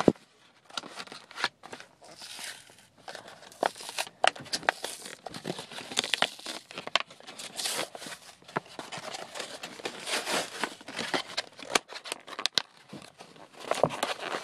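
Toy blaster packaging being torn and pulled open by hand: plastic crinkling, tearing and irregular clicks and rustles.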